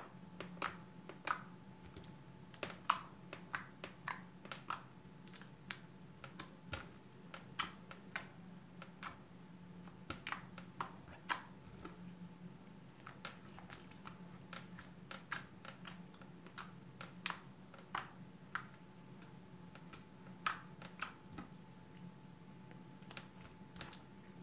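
Glitter slime squeezed and worked by hand, making many quiet, irregular sharp clicks and pops.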